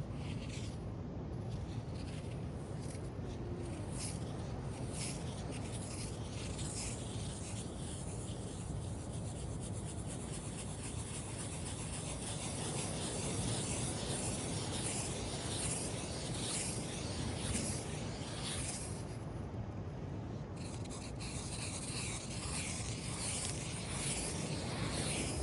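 Small sea waves washing in and out over a sandy beach, with a steady gritty scratching of sand grains moved by the water. The scratching thins out briefly about three quarters through, then picks up again.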